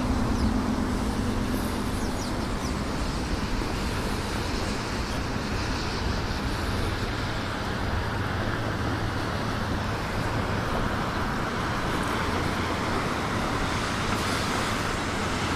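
Steady hiss of light rain falling, with a low rumble on the microphone.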